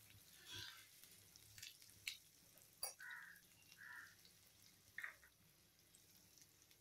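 Near silence: faint room tone with a few soft ticks and short, faint sounds.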